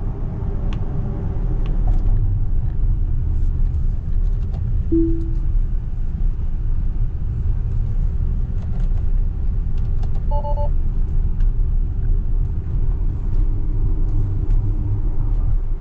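Steady low road and tyre rumble inside the cabin of a Tesla Model X electric SUV on the move, with no engine note. A short electronic chime sounds about five seconds in, and a brief two-tone beep about ten seconds in.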